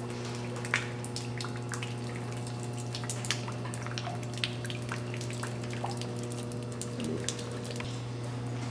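Water dripping irregularly in a large derelict building: scattered sharp drops several times a second, over a steady low hum.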